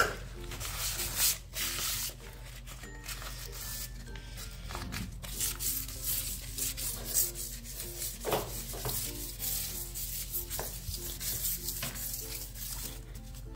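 A wad of wet crumpled paper rubbed back and forth across a stone-tile floor in repeated scrubbing strokes, with light background music.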